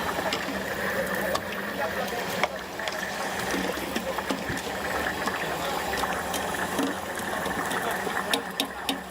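Stinky tofu deep-frying in hot oil: a steady sizzle with scattered crackles and pops, over a steady hum.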